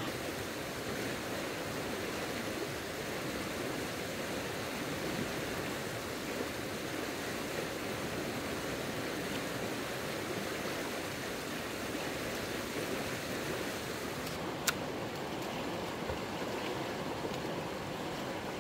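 Steady rush of a fast-flowing stream, with a single sharp click late on.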